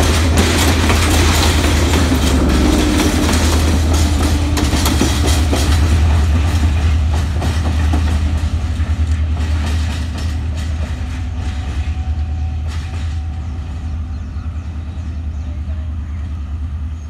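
Passenger train passing close by: a deep rumble with its coach wheels clicking over the rail joints, then fading gradually from about seven seconds in as the train draws away down the line.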